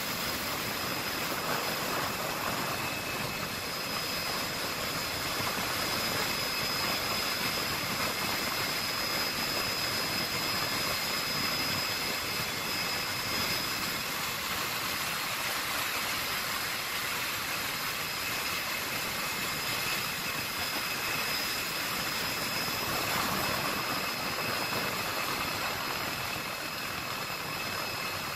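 Helicopter noise heard inside the cabin: a steady rush of engine and rotor with a steady high-pitched whine.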